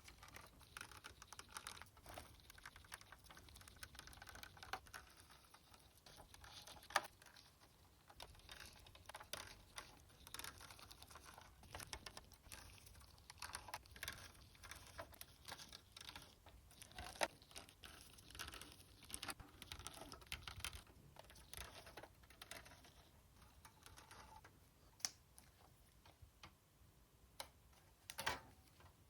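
Many small clicks, taps and light scrapes of plastic and metal parts being handled while a PS4 Slim console is taken apart. The clicking thins out to a few separate taps near the end.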